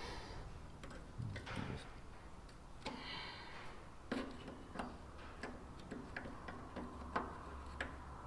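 Irregular light clicks and taps of a tool prising at the plastic sender unit locking ring on a Land Rover Defender fuel tank, with a short scrape about three seconds in; the taps come closer together in the second half.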